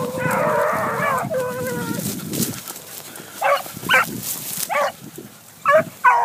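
A pack of young beagles baying on the trail of a cottontail rabbit: hounds giving tongue as they run the scent. It opens with a chorus of long, overlapping bays, then thins to about five short, separate barks in the second half. A rustling of dry brush runs underneath.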